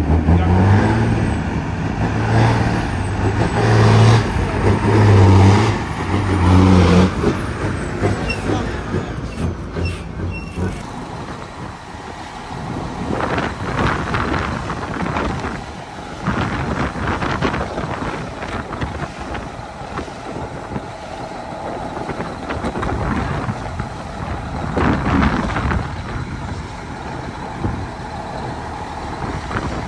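Heavy diesel truck engine running hard, its deep note stepping up and down, until it drops away about ten seconds in; after that, lighter truck running noise with short hisses of air, typical of air brakes.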